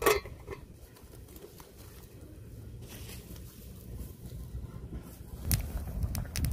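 A metal pot lid clanks against an aluminium cooking pot at the start. Then a low rumble with faint scattered crackles from the wood fire under the pot. Near the end comes a short cluster of sharper clicks and knocks.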